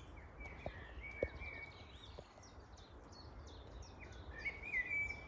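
Faint songbirds chirping and singing short phrases in the background, a little clearer near the end, over a low steady rumble with a few soft ticks.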